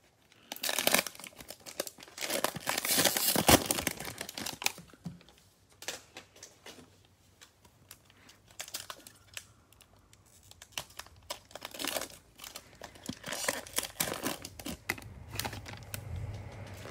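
Plastic wrapper of a Prizm football card pack being torn open and crinkled in loud bursts during the first few seconds, with quieter crackling after that and another run of crinkling a few seconds before the end.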